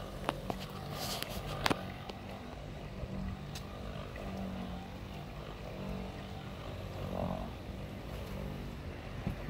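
Handheld electric polisher running against a fibreglass boat hull, a steady low motor hum that wavers slightly in pitch as it is worked. A few sharp clicks sound in the first two seconds.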